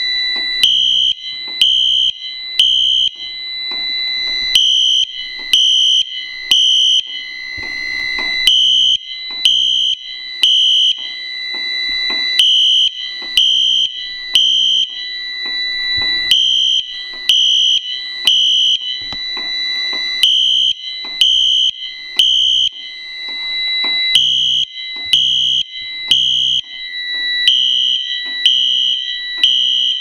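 Fire alarm horns on a demonstration board sounding together in alarm after a tripped photoelectric smoke detector. There is a pulsing tone in a repeating pattern, typical of the temporal code-3 setting, over a steady high tone, with regular sharp clicks.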